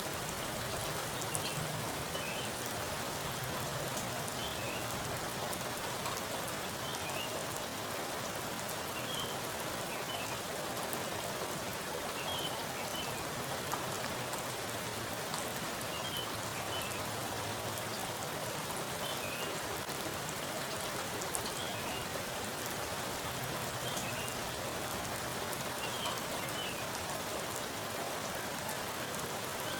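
Heavy rain falling onto a pool of standing water: a steady, dense patter of drops hitting the surface. Faint high chirps recur every couple of seconds in the background.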